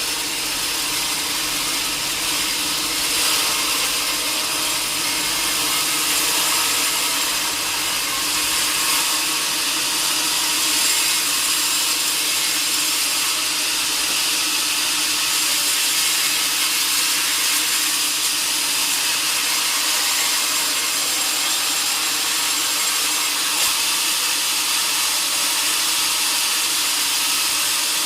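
Sawmill saw running steadily through a large log: a continuous, mostly high-pitched cutting noise over a steady machine hum.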